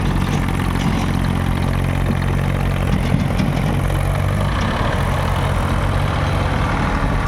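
Diesel engine of a JCB 3DX backhoe loader running steadily, with the engine note wavering briefly about three seconds in.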